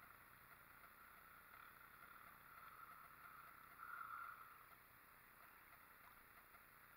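Faint, steady drone of an ATV engine while riding, swelling briefly about four seconds in.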